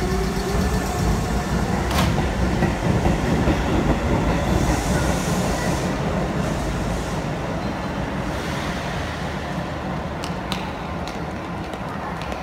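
Hokuso Railway 7260 series electric train pulling out of the station. A motor whine rises in pitch as it accelerates, ending about a second in, over the rumble of the wheels on the rails, which slowly gets quieter as the train moves away. There is a sharp click about two seconds in and a few more near the end.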